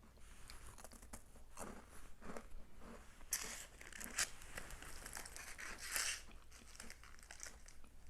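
Crinkling and crunching as a thin, crisp baked cookie and its plastic packet are handled and bitten, in irregular crackly bursts that are loudest a little past halfway.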